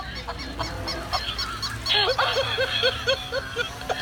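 Animated plush animal toy sounding a quick run of short, evenly spaced bird calls, about four a second, starting about halfway through.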